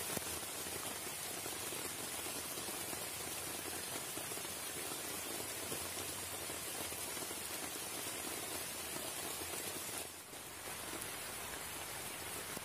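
Rain falling steadily, an even pattering hiss, with a brief dip about ten seconds in.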